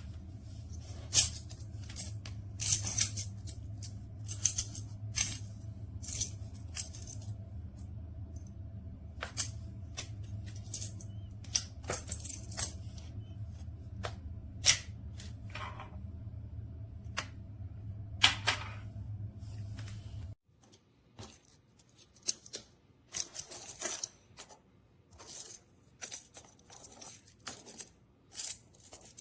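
Small magnetic plastic building cubes clicking and clacking together in quick, irregular snaps as they are handled and snapped into place, over a steady low hum that cuts off suddenly about twenty seconds in.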